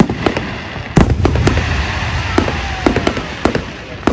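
Fireworks going off: a rapid string of sharp cracks and pops, with one heavy boom and rumble about a second in, and faint whistles falling in pitch.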